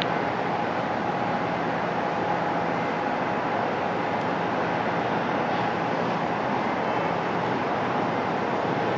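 Twin General Electric CF34-8E turbofans of an Embraer ERJ-175 at takeoff power on the takeoff roll, heard from afar as a steady rushing noise with a faint thin whine.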